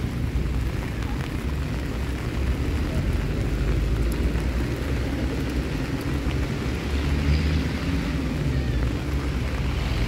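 Steady rain with a heavy low rumble underneath, even throughout.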